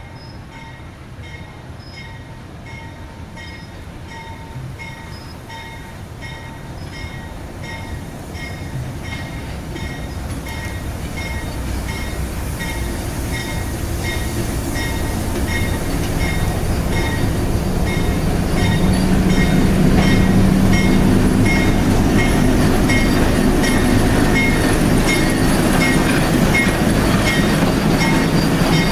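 Diesel switcher locomotive pulling a passenger train, approaching and passing close by, its engine rumble growing steadily louder. A bell rings steadily about twice a second throughout.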